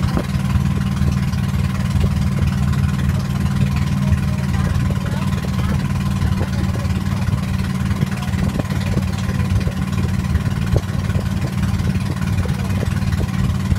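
Engine of a small wooden motorboat running steadily under way, an even low drone.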